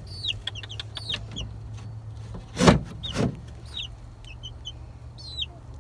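Young chicks peeping in short, high, falling chirps. Two dull knocks about halfway through, over a steady low hum.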